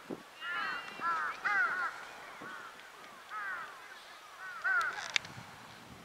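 A crow cawing in a string of calls: a quick run of them in the first two seconds, then single caws about three and a half and five seconds in. A couple of short sharp ticks come just after five seconds.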